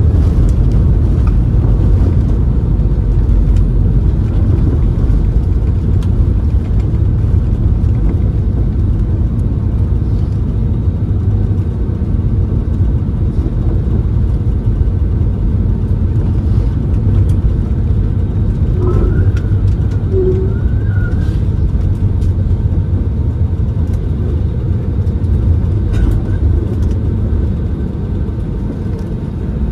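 Cabin noise of an Airbus A320-family jet rolling down the runway after landing, spoilers up: a steady low rumble of the engines and wheels, easing slightly toward the end as the plane slows.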